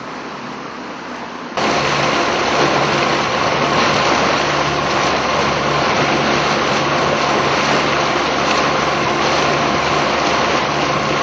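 Motorboat engine running at speed, with water rushing and churning past the hull in a steady noise. The sound jumps suddenly louder about a second and a half in, then holds steady.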